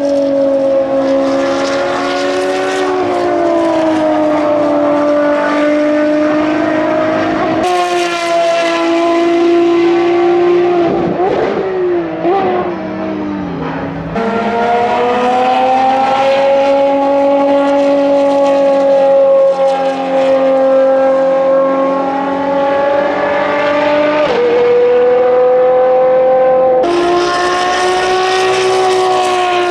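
Ferrari V12 track cars (599XX and FXX K) running at high revs past the trackside, a high-pitched engine wail held steady over several seconds at a time. Around 11 to 13 seconds in, the pitch wavers and dips as the engine is blipped on downshifts. About 24 seconds in, the note drops suddenly on an upshift.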